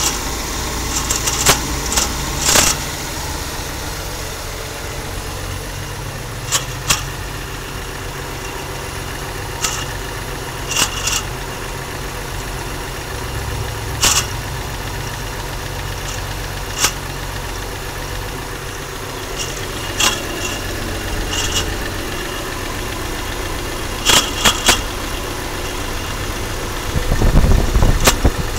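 230 inline-six engine idling steadily, with irregular sharp clicks over it every few seconds and a brief louder low rumble near the end; the owner hears a grinding noise in it that he cannot place.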